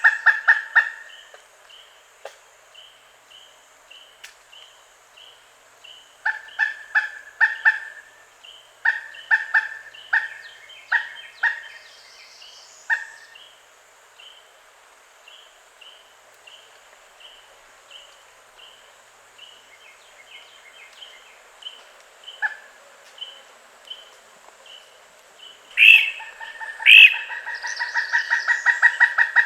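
Pileated woodpecker calling: series of short, loud, evenly repeated 'kuk' notes in bursts, the loudest run building up near the end. A fainter, higher note repeats about twice a second in the gaps between the bursts.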